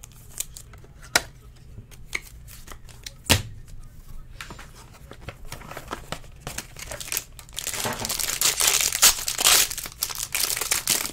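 Scattered clicks and light rustling as trading cards and plastic sleeves are handled. Then, from about seven and a half seconds in, loud crinkling and tearing as the foil wrapper of a baseball card pack is ripped open.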